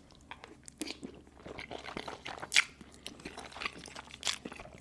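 Close-miked chewing and biting of macaroni with cheese: irregular sharp wet clicks and crunches, the loudest about two and a half seconds in and again just past four seconds.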